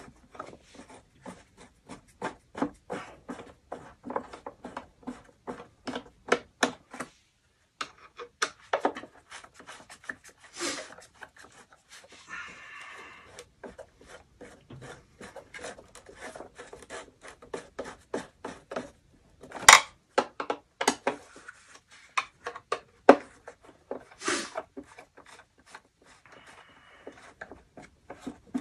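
Screws inside a Ridgid K9-204 drum being tightened by hand with a tool, snugged down rather than forced: a steady run of small metal clicks and rubbing, about three or four a second. There are a few brief scrapes, and a few louder knocks about two-thirds of the way through.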